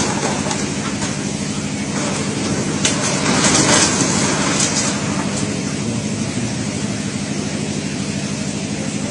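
Continuous roar of a fast, muddy floodwater torrent, growing briefly louder with a few sharp crashes about three to four seconds in.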